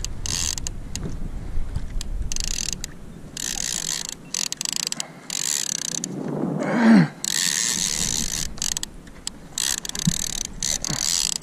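Fishing reel being cranked in stop-start bursts, its gears whirring and clicking as line is wound in. About seven seconds in comes a brief, loud, falling voice-like sound.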